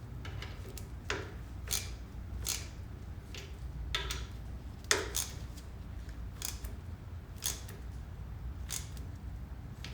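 Short metallic clicks at uneven intervals, about one a second, as an Allen key is turned and reset to tighten the screws of a brake master cylinder's top cover.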